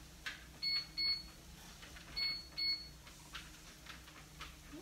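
Horizon treadmill console beeping as its buttons are pressed: four short, high beeps in two pairs, the pairs about a second and a half apart. A low, steady hum from the treadmill running underneath.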